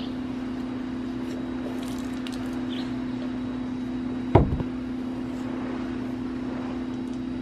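A steady low mechanical hum, with a single sharp knock about four seconds in as a wet hiking shoe is emptied and knocked against a wooden deck.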